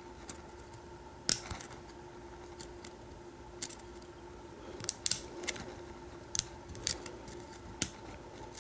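Small metallic clicks of a hook pick and tension wrench working the pin stack of a pin-tumbler padlock during single-pin picking. The clicks are sharp and scattered, with the loudest about a second in and a small cluster about halfway, over a faint steady hum.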